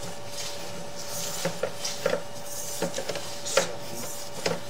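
Irregular light clicks and clacks as a sewer inspection camera's push cable is pulled back through a cast iron drain line, over a steady thin electrical tone.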